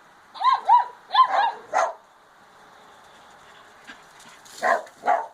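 Puppies giving their first barks: about four quick high-pitched yips in the first second and a half, then short sharper barks, one near two seconds in and two more near the end.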